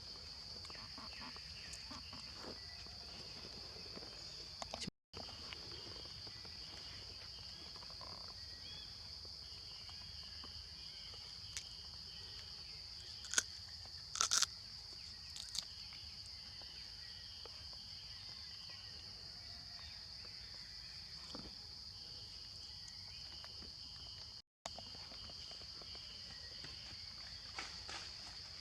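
Steady high-pitched chirring of insects, with a few short clicks about halfway through. The sound cuts out completely for a moment twice.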